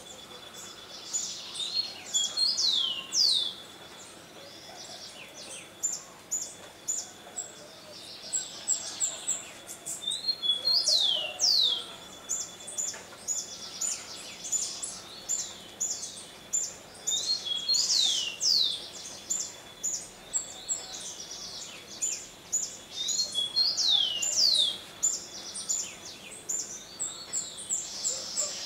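Birds singing: a steady run of short, high chirps, and about every seven seconds a phrase of several falling whistled notes.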